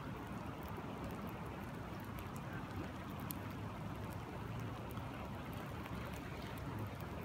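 Steady rain falling on a river and a rain-dimpled puddle, over the even rush of the river's flow, with scattered sharp ticks of single drops landing close by.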